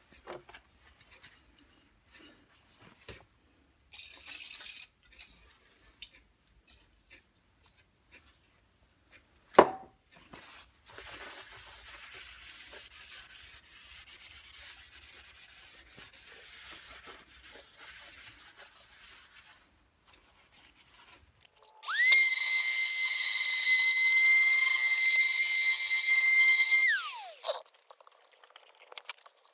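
Workshop work sounds: scattered small knocks and handling noise and a stretch of steady scrubbing hiss, then a small high-speed power tool motor whining up to speed, running steadily for about five seconds and winding down.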